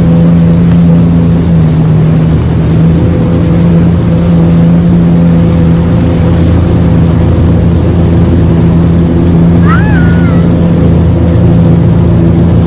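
Jet ski engine running at a steady cruising speed, a loud even drone, with the rush of wind and water over the microphone.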